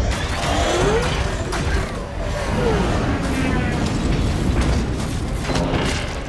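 Science-fiction sound design for a living ship being flown: the ship's tentacle controls being worked, with a couple of gliding tones, one rising and one falling, over a deep, steady low rumble.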